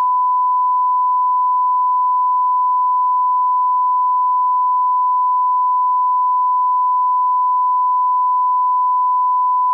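Steady 1 kHz reference test tone, the line-up tone that goes with SMPTE colour bars, held as a single unbroken pitch.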